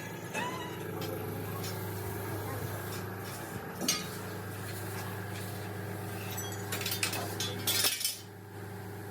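Light metallic clinks and taps of metal parts being handled, with a louder knock about four seconds in and a cluster of clinks near the end, over a steady low machine hum.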